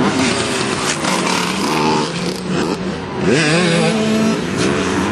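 Dirt bike engine running, its pitch sweeping up and down as it is revved a little after three seconds in.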